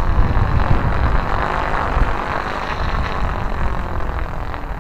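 Four Firefox stunt kites (3.3 m wingspan) roaring as they sweep through the air: a loud, steady rushing from their sails, easing slightly near the end. Wind rumbles on the microphone underneath.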